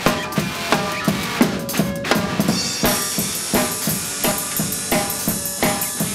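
Background music with a drum-kit beat: steady bass and snare hits with pitched instrument notes over them, and a cymbal or hi-hat wash coming in about three seconds in.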